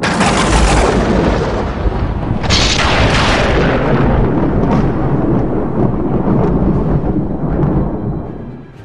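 Thunder sound effect: a loud crash and long rumble over heavy rain, with a sharper crack about two and a half seconds in. It fades out near the end.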